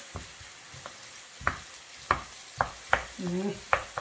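Chopped onions sizzling gently in a little oil in a stone-coated frying pan, stirred with a wooden spoon that knocks against the pan several times in the second half.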